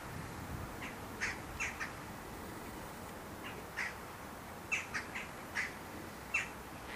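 A bird giving short, sharp calls, singly and in quick groups of two or three, several times over a steady background hiss.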